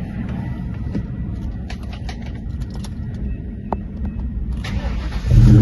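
1998 Ford Mustang Cobra's 4.6-litre V8 being started: a few seconds of low rumble and small clicks, then the starter cranks briefly near the end and the engine catches and runs loud. It starts now that the blown 20 A fuse feeding the engine computer has been replaced.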